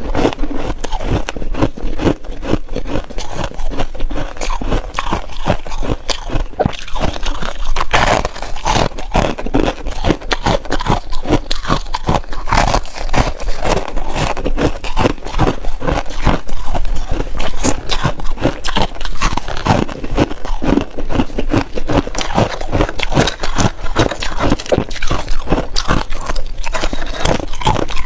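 Freezer frost being bitten and chewed: a dense, irregular run of crisp crunches, several a second.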